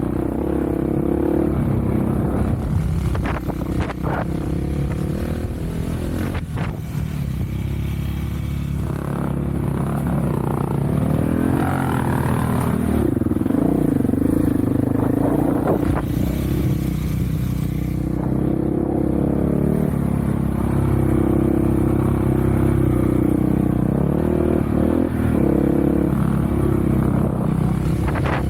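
Off-road vehicle engine running while under way, its revs rising and falling with the throttle, with occasional knocks and clatter.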